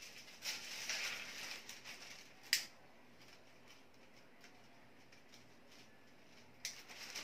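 Thin Japanese kite paper rustling and crinkling as the sail is handled and lifted, with a sharp click about two and a half seconds in and another near the end.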